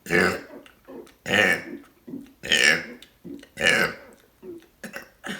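A person burping over and over, about one loud burp a second: four in a row, then a shorter one near the end.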